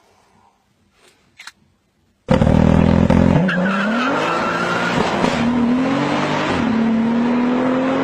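A heavily tuned 740-horsepower Volkswagen Golf launching hard. Its engine note starts suddenly about two seconds in, with tyre squeal at the launch, and climbs through the gears, dropping at each of two upshifts.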